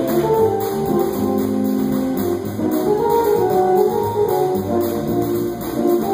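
Live small-group jazz playing a samba: drum kit keeping a fast, even cymbal pattern, upright double bass walking underneath, and a melody line moving above.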